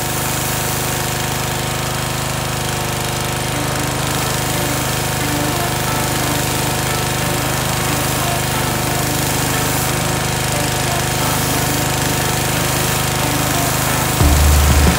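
Pressure washer running steadily: a constant machine hum under an even hiss.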